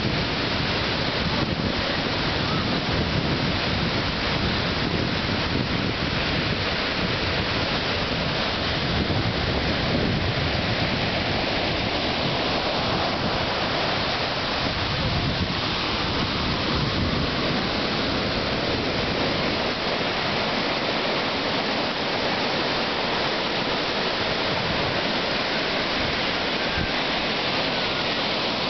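Ocean surf breaking and washing up a sandy beach, a steady rush of waves. Wind rumbles on the microphone, easing off about two-thirds of the way through.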